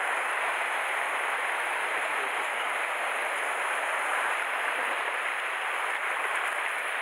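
Sea waves surging over and draining off a rocky shore, a steady rush of foaming water.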